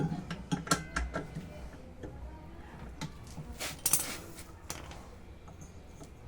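Hand tools and metal machine parts knocking and clinking, a quick series of sharp clicks, with a short scraping rasp about three and a half seconds in.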